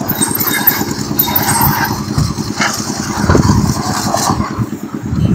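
Engine of construction machinery running with a steady low rumble, with scraping noise over it.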